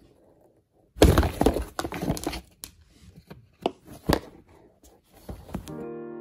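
A cat scrabbling inside a cardboard box, pawing at the cardboard so it rustles, scrapes and knocks in a quick, loud jumble with several sharp thumps, for about four and a half seconds. Piano music starts near the end.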